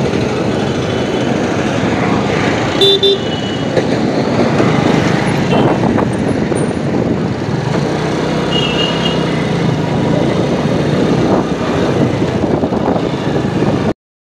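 Riding noise from a TVS motorcycle on the move: a steady rush of wind, engine and road noise, with a short vehicle horn toot about three seconds in and a fainter toot near nine seconds. The sound cuts off abruptly near the end.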